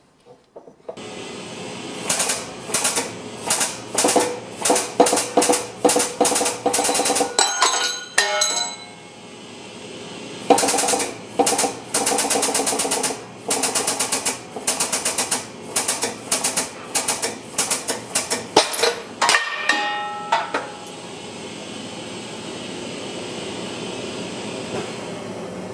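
Work on a car's rear wheel hub: runs of short, sharp metallic rattling strokes, about two a second, each run ending in a brief metallic ring. A steady hum takes over for the last few seconds.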